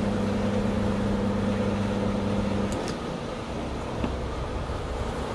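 Caterpillar scrap-handling excavator's engine running with a steady hum. About three seconds in the hum's main tone drops away, leaving a lower rumble.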